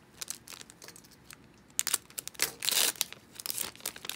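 Foil trading-card pack wrapper crinkling and tearing as it is ripped open and the cards are pulled out, with scattered crackles and a dense burst of crinkling a little past halfway.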